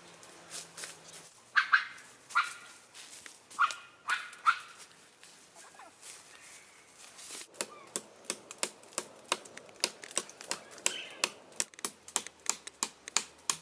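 A dog barks about five times in short sharp barks during the first few seconds. Then comes a quick run of sharp snaps and clicks, two or three a second, like dry brush and twigs being trodden or broken.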